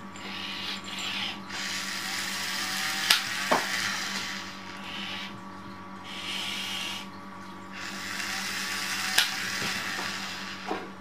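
Toy spider robot's small electric motor and gears whirring in two long runs, with a few sharp clicks.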